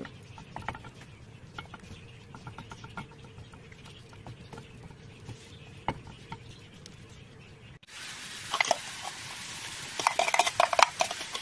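Ground beef frying in a pan, stirred and scraped with a spatula, with light clicks of the spatula on the pan. About eight seconds in, the frying sizzle becomes suddenly louder, with clattering knocks from stirring and chopped onion being tipped in.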